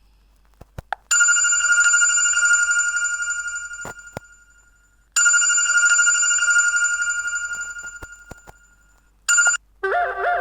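Bell-like ringtone of a Fly FS458 Stratus 7 mobile phone. A chime strikes about a second in and rings out over some four seconds, then strikes again and rings out. A third strike is cut off short, and a different ringtone with a quick repeating pattern starts near the end.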